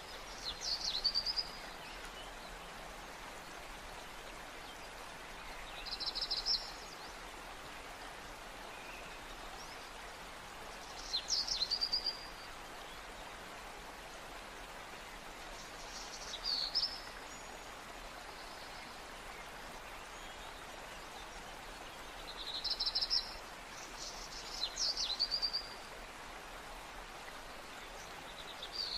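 A bird repeating a short, high chirping phrase about every five seconds over a steady background hiss.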